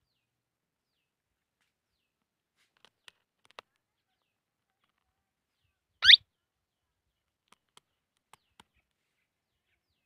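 Indian ringneck parakeet giving one short, loud call that rises in pitch, a little past the middle, with a few faint clicks before and after it.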